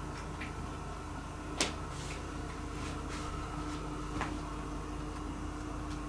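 A sharp click about one and a half seconds in and a softer one near four seconds, with a few faint ticks, over a steady low hum.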